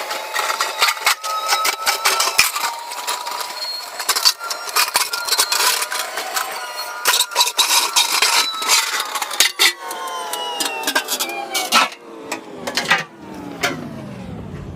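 Hitachi EX300LC excavator working under load: engine and hydraulic whine with many sharp knocks and clanks. The whine's pitch drops over the last few seconds.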